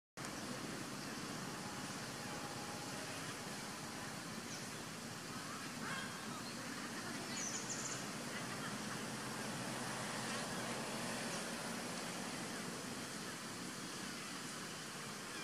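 Steady outdoor background hiss, with a few faint, short high chirps about six and seven and a half seconds in.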